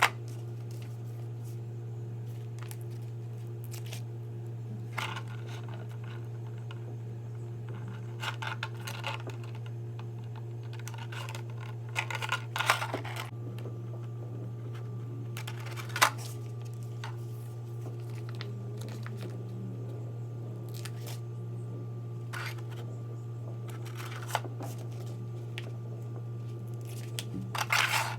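Close handling noise: scattered scrapes, rustles and sharp clicks of parts being picked up and moved, with a cluster of rustling about 12 seconds in, a sharp click at 16 seconds and more rustling near the end, over a steady low hum.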